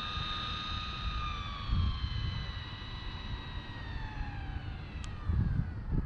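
High-pitched whine from the twin sensorless brushless motors and drivetrain of an Arrma Felony RC car, steady at first and then falling in pitch over about three seconds. Low gusts of wind buffet the microphone, with a single short tick near the end.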